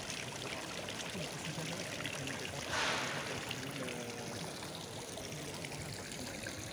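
Water from the Piazza Farnese fountains splashing steadily into their stone basins, briefly louder about three seconds in.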